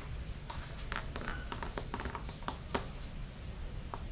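A car tyre moves slowly beside a pile of green chillies on a tiled floor, with light, irregular clicks and crackles over a low steady rumble.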